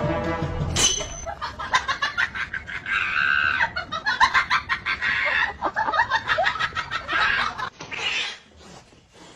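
Birds calling: a rapid run of short, sharp calls mixed with a few longer pitched cries, fading out near the end.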